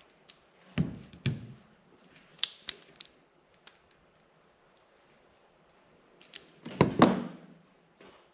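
Sharp clicks and knocks of small hand tools on a workbench as a female terminal is crimped onto a wire: a pair of knocks about a second in, a few lighter clicks, then the loudest clatter near the end.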